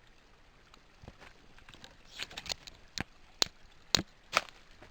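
A run of sharp knocks and snaps, about six in the second half, from someone scrambling with the camera over rocks and sticks beside a creek.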